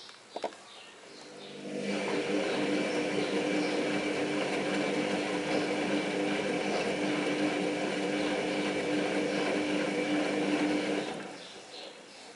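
Front-loading washing machine's drum motor running, with a steady hum and the splashing of wet, foaming laundry. It starts about two seconds in, runs for about nine seconds, then winds down. A couple of clicks come before it starts.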